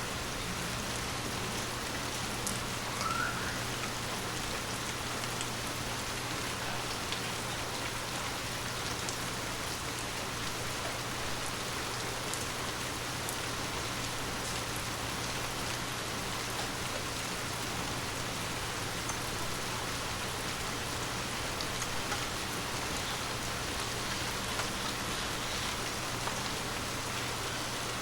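Steady gentle rain falling on forest leaves: an even patter dotted with the small ticks of single drops.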